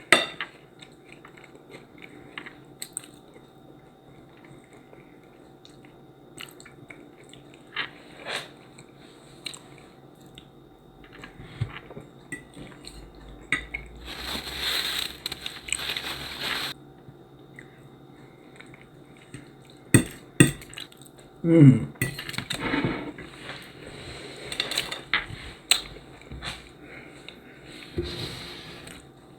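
Someone eating: cutlery clinking on a dish, with chewing and crunching of crisp garlic-and-rosemary crostini, louder for a few seconds about halfway through. A short, pleased "mmm" hum comes about three quarters of the way in.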